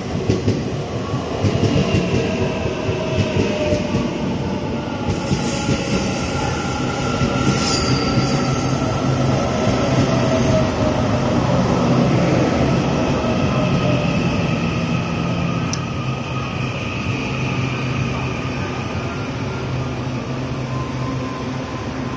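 EMU800 electric multiple unit pulling into a station and slowing to a stop, its motors whining in several tones that fall steadily in pitch as it decelerates, over the rumble of the wheels. A brief high squeal comes about five to eight seconds in.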